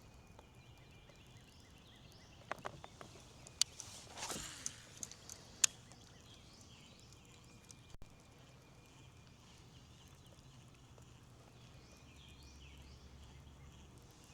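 Quiet outdoor ambience with faint bird chirps, broken by a few sharp clicks and knocks and a short swish around three to six seconds in, like fishing gear being handled on a kayak.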